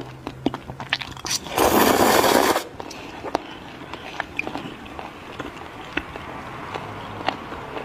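Close-miked eating of raw octopus: wet, sticky chewing clicks and smacks, with a loud slurp lasting about a second near the start as a tentacle is sucked in.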